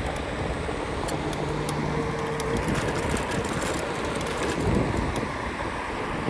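Electric scooter ride: wind noise on the microphone and a steady rumble of road noise, with a brief steady hum from about one to two and a half seconds in and light rattling clicks.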